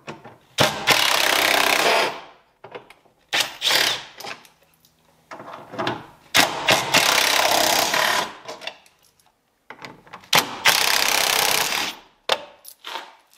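Cordless driver with a Torx bit spinning screws out of a Jeep Wrangler TJ's plastic dash trim, in several runs of one to two seconds with short pauses between.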